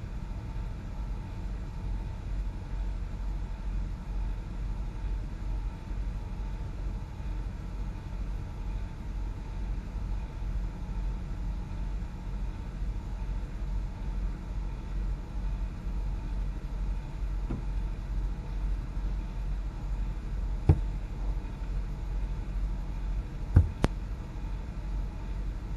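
Steady low engine and road rumble of a semi-truck heard from inside the cab, with a sharp knock about three-quarters of the way through and two more close together near the end.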